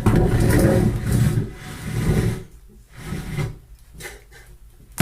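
Rough rubbing and handling noise close to the microphone, loudest in the first second or so, followed by a few shorter bursts.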